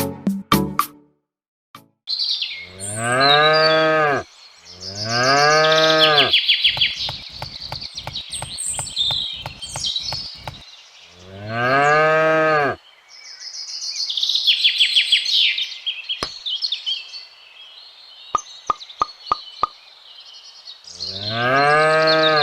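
A cow mooing four times, each moo a low call that rises and falls in pitch over about a second and a half, with birds chirping between the moos. A fast run of clicks comes between the second and third moo.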